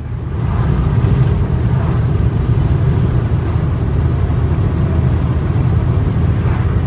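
A car driving along a highway, heard from inside the cabin: a loud, steady low road-and-engine rumble that swells in over the first half-second.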